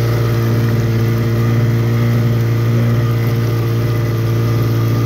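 Motorboat engine running steadily at constant speed with a strong low hum, pulling a second small boat on a tow rope.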